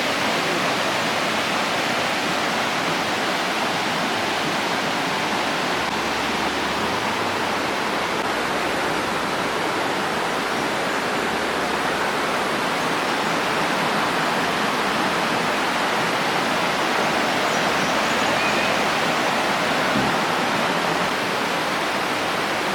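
Waterfall, water falling and rushing steadily as an even, unbroken hiss.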